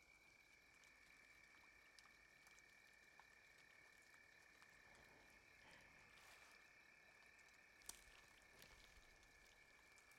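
Near silence: faint night jungle ambience, a steady high thin drone like an insect chorus, with scattered soft ticks and drips and one sharper tick near the end.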